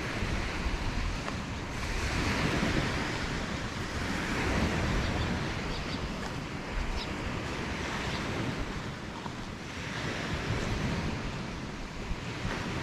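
Small waves washing onto a sandy beach, the hiss swelling and fading every few seconds, with wind rumbling on the microphone.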